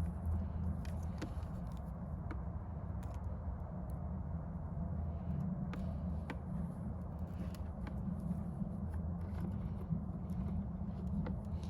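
Steady low outdoor rumble, with scattered small clicks and taps of hands working on small wiring parts.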